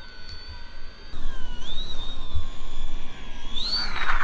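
Electric motor and propeller of a foam RC Kitfox model plane whining steadily, then growing louder about a second in, its pitch rising and falling with the throttle as the plane comes in to land.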